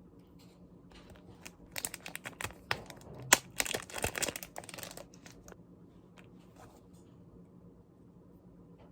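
Crinkling plastic packaging and small plastic clicks as a replacement Apple Pencil tip is unpacked and swapped in. A quick run of clicks and rustles comes between about two and five seconds in, with one sharp click a little after three seconds.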